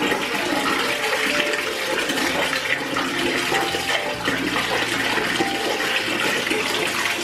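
Water running steadily from a wall-mounted bath mixer faucet with its aerator removed, a full unaerated stream, as the cold-water inlet valve is opened up to increase the flow while the newly installed faucet is flushed through.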